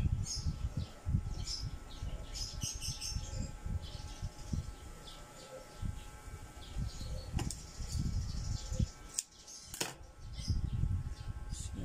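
Stretch knit fabric rustling and being handled on a sewing table, with small birds chirping repeatedly in the background. Two sharp clicks sound in the second half.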